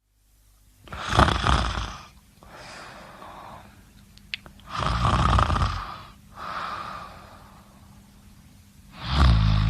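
A person snoring: three loud snores about four seconds apart, each followed by a quieter breath. A short click falls between the first two snores.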